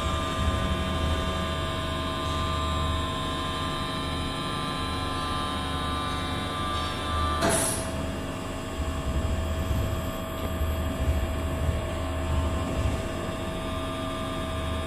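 Steady hum of a hydraulic test rig's electric motor and pump running while the rig loads a steel bale spear, with a single sharp click about seven and a half seconds in.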